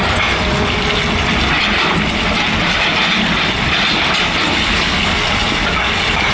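Excavator working, a loud, steady machine noise without distinct separate blows.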